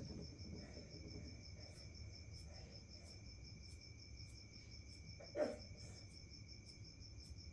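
Crickets trilling steadily at a high pitch, with a brief low voice-like sound about five seconds in.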